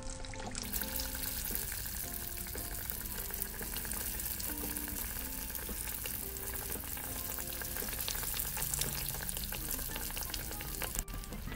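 Raw belyashi (meat-filled yeast-dough pies) deep-frying in a pan of hot oil: a dense, steady sizzle and crackle of bubbling oil around the freshly added batch.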